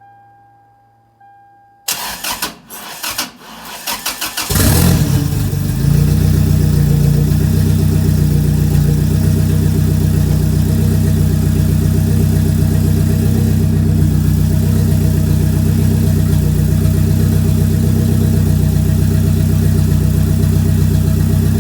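Turbocharged Toyota Tacoma's 2RZ four-cylinder engine cranking for about two and a half seconds, catching about four and a half seconds in, then running at a steady idle.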